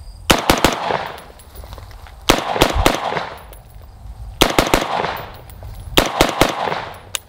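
IWI Zion-15 5.56 AR-15, fitted with a VG6 Gamma muzzle brake, fired in four quick strings of about three shots each, roughly two seconds apart, each shot with a short echo after it.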